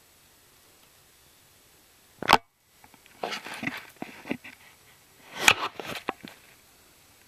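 Handling noise: a sharp knock a little over two seconds in, then two short bursts of rustling and clicking.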